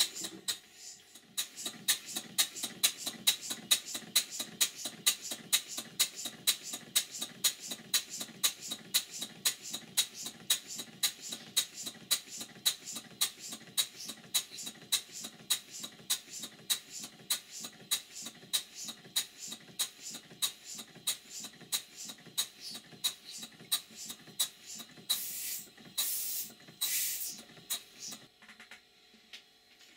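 Stuart 5A model steam engine running on compressed air: a quick, even beat of exhaust puffs with hiss. Near the end there are two longer hisses of air, and then the beat stops. On this first run the owner notes a blowing piston gland and a flywheel that knocks a bit because its key is too small.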